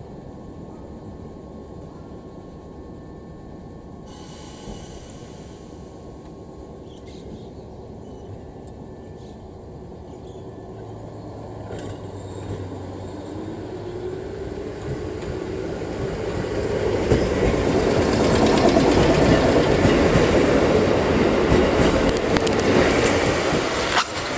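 Kotoden 1080-series electric train pulling away: after a steady hum at standstill, the traction motors whine up in pitch as it accelerates. It grows loud as it comes close, with wheels running on the rails.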